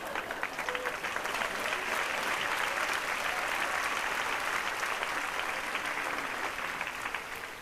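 Theatre audience applauding, a steady dense clapping that tails off near the end.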